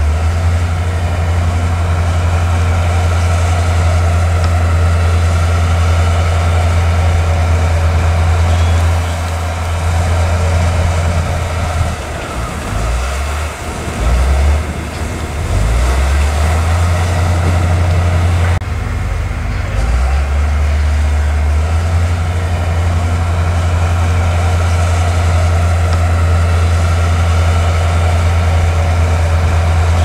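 Crawler bulldozer's diesel engine running hard as it pushes soil, a deep steady note that falters and drops in level for several seconds in the middle before settling back to a steady run.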